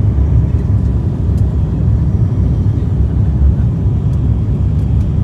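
Steady low drone inside the cabin of an ATR turboprop airliner descending to land: engines, propellers and airflow.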